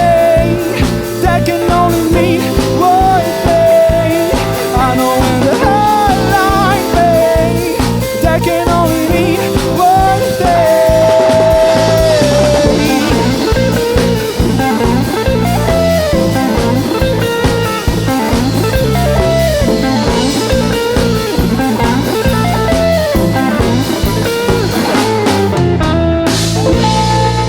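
Rock band playing an instrumental passage: a lead electric guitar line with bent, gliding notes over bass and a drum kit beat.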